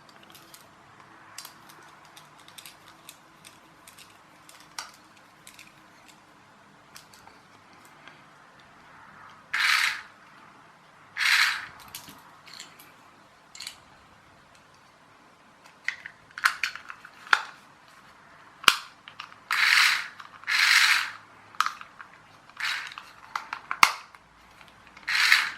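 Small plastic and metal parts of a toy car's wired hand controller being handled and adjusted: light clicks and taps, then from about ten seconds in, short scraping rubs that come thicker toward the end, as its metal spring contacts are bent for more spring.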